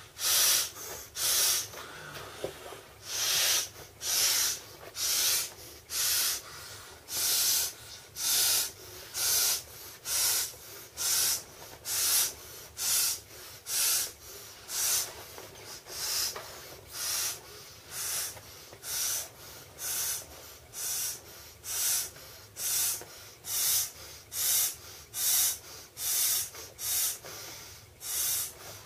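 Rhythmic hissing breaths of a person blowing up an inflatable swim ring tube by mouth, short sharp breaths about once a second.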